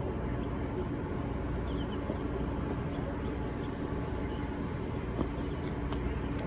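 Steady outdoor background rumble, strongest in the low end, with a faint steady hum and no distinct events.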